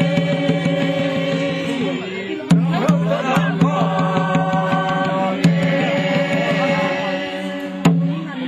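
A group of men and women singing a slow traditional chant together in long held notes, with a large wooden barrel drum struck three times, about once every two and a half seconds.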